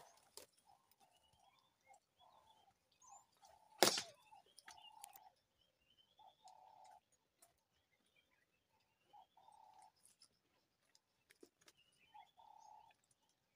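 Faint wild birdsong: a bird repeats short, low hooting notes while another gives high, rising chirps. A single sharp crack sounds about four seconds in.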